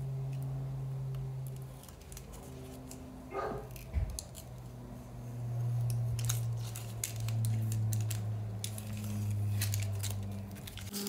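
Tape-covered paper crinkling and crackling as a handmade paper sticker is peeled off its backing and handled, in sharp bursts that thicken in the second half. Under it a low steady hum shifts pitch every second or two.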